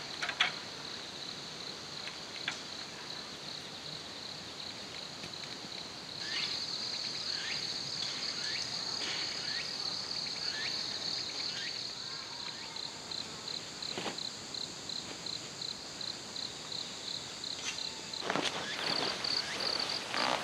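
Autumn insects chirping steadily in a high, pulsing rhythm, in the style of crickets or katydids. Two sharp knocks sound at the start, and a short spell of louder noise comes near the end.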